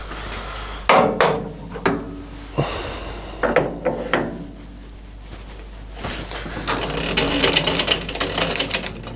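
Metal lathe parting off a turned sleeve: sharp separate clicks from the parting tool at first, then a denser rattling chatter in the second half, over the steady low hum of the machine.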